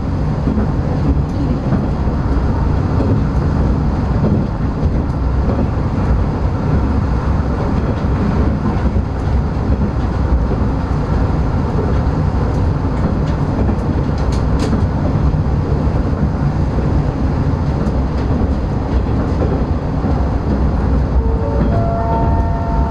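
NT100 diesel railcar running steadily along the line, heard from inside the driver's cab: continuous engine and wheel-on-rail noise. Near the end a brief tone steps up in pitch.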